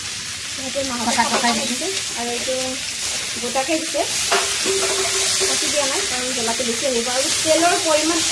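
Chicken curry sizzling as it fries in a steel kadai, stirred with a spatula that clicks against the pan now and then. A voice is heard faintly in the background.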